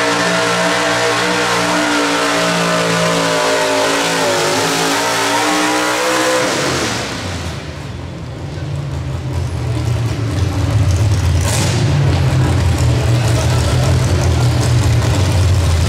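Pro stock mini pulling truck's engine held at high, steady revs under full load while pulling the sled. About seven seconds in the throttle is cut sharply at the end of the pull, and the engine drops to a loud, rough, low rumble.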